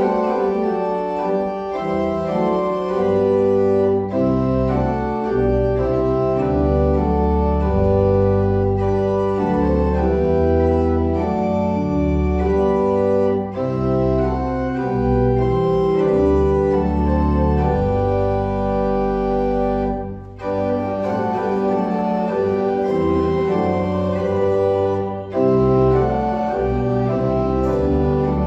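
Church organ playing full held chords over a deep pedal bass line, with short breaks between phrases about 20 and 25 seconds in.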